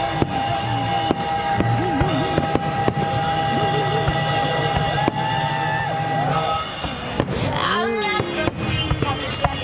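Fireworks shells going off in sharp bangs, roughly one a second, over pop music with a long held high note and singing.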